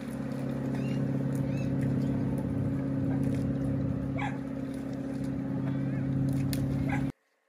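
A motor engine running steadily with an unchanging hum, a few short chirps sounding over it. It cuts off suddenly near the end.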